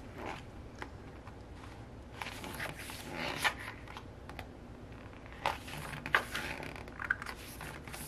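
Paper pages of a hardcover album booklet being turned one after another, with soft rustles and flicks of paper at several points.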